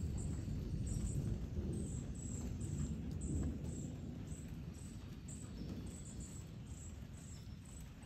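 Outdoor backyard ambience: a low rumble that fades away over the first few seconds, with faint high chirps repeating about twice a second throughout.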